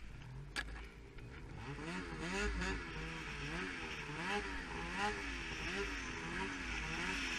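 Snowmobile engine revving up and down over and over, its pitch rising and falling about twice a second, growing louder from about a second and a half in. A sharp click sounds just after the start.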